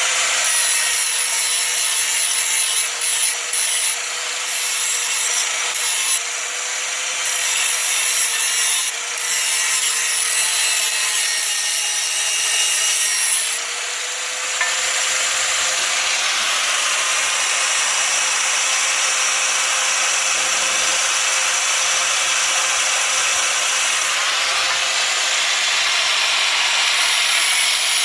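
Electric grinder running steadily and grinding metal: a constant motor whine under a harsh rasp, easing off briefly a few times in the first half, then held on the work continuously.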